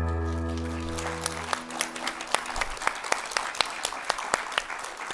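The closing music of a short video, sustained tones, fades out in the first second and a half, and an audience claps over it, the applause going on as scattered claps that thin out near the end.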